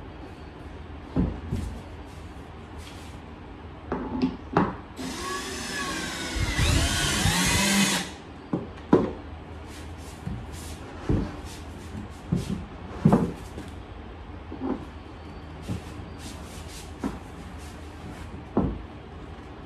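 Cordless drill running for about three seconds, driving a screw into a cabinet panel, its whine rising in pitch near the end of the run. Before and after it come scattered knocks and clicks of the panels and the drill being handled.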